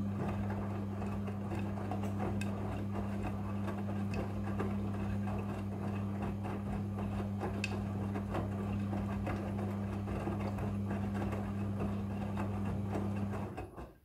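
Midea front-loading washing machine drum turning during a wash cycle: a steady low motor hum with the wet clothes tumbling and small clicks of fasteners against the drum. It stops near the end as the drum comes to rest.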